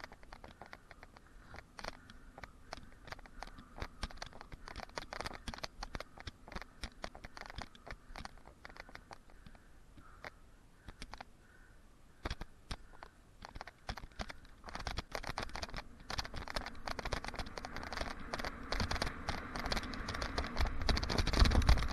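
Mountain bike rolling over a packed dirt track, its tyres crunching on grit and the bike clicking and rattling rapidly. About halfway through a rushing noise builds and grows louder toward the end as the bike picks up speed.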